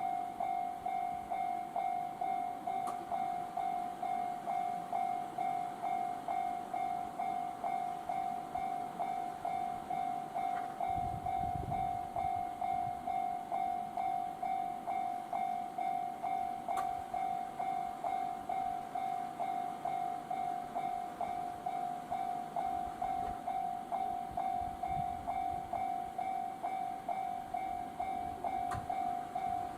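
Railway level-crossing alarm ringing: one clanging electronic tone repeating evenly, a little over twice a second. A brief low rumble comes in about eleven seconds in.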